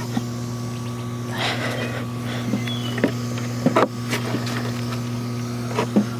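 Wooden pallet boards knocking and scraping as they are laid onto a wooden frame, with a few sharp knocks, two in quick succession. A steady low hum from the pond's electric pump runs underneath.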